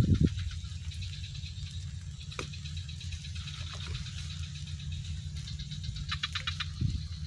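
Outdoor ambience by a swamp pond: a steady low rumble under a faint high hum and fine patter, with a quick run of rapid clicks about six seconds in, typical of insects or frogs calling.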